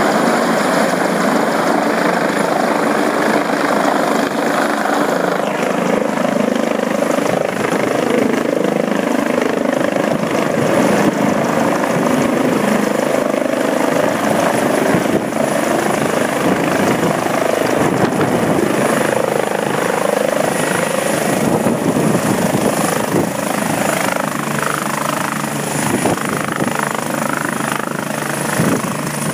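Medical helicopter descending and touching down, its rotor and engines running loud and steady with a steady high whine over the rotor noise.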